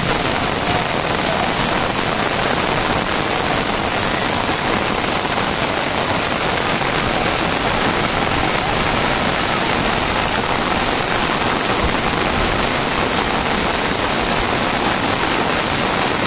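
Heavy downpour of monsoon rain: a steady, even hiss of rain falling on floodwater.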